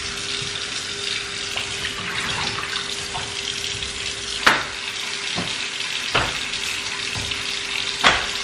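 Kitchen faucet running steadily into the sink, used to thaw frozen ribs, with a few short knocks at about four and a half, six and eight seconds in.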